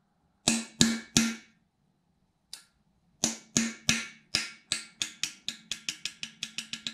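Hammer striking a steel punch set against the edge of an oil gallery plug in an aluminium 4.6 engine block: sharp metallic taps with a ring. Three quick strikes, a pause, then a run of strikes that speeds up to about five a second. The off-centre blows are meant to make the plug spin in its bore so it can be pulled out.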